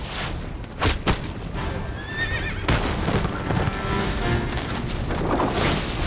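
A horse whinnying about two seconds in, with two sharp impacts just before it, over background music.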